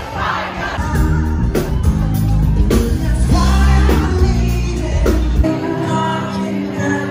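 Live pop-rock band with a singer, recorded on a phone from the crowd: drum hits over a heavy bass, with crowd noise at the start. The heavy bass drops out abruptly about five seconds in, leaving held sung and played notes.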